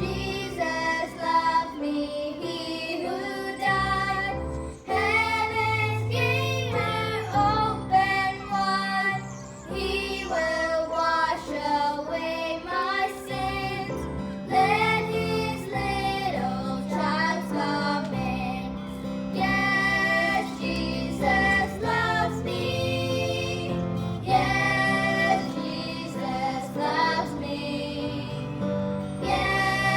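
Gospel song performed live: a high singing voice carries the melody over instrumental accompaniment with a bass line.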